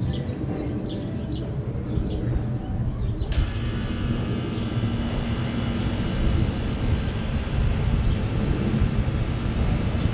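2005 Trane XB13 central air conditioner outdoor units running with a steady low hum and fan whoosh. About three seconds in, a brighter hiss with several steady whining tones comes in abruptly.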